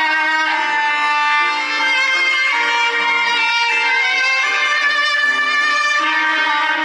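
A Samsung One UI ringtone playing: an instrumental melody of held, changing notes at a steady level.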